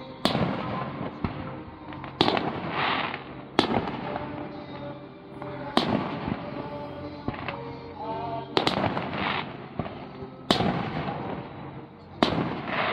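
Aerial firework shells bursting: about seven sharp booms spaced roughly two seconds apart, one of them a quick double near the middle, each trailing off in a lingering tail.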